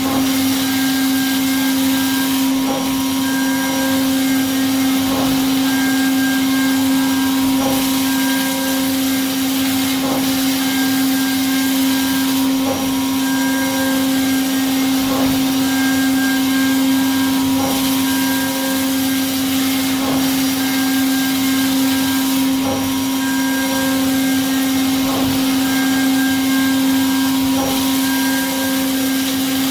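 CNC milling machine cutting parts: a steady spindle whine, with the cutting pattern repeating about every two and a half seconds as the toolpath repeats.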